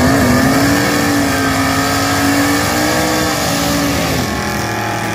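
Engine revved up and held at high revs during a burnout, with spinning tyres hissing underneath; the revs drop off about four seconds in.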